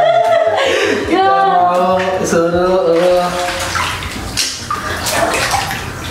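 Bathwater sloshing and splashing in a foam-filled bathtub as people shift about in it, with laughter in the first few seconds.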